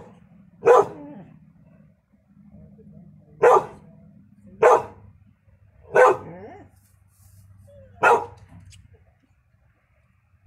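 A dog barking: single sharp barks, about six in all, spaced irregularly one to three seconds apart.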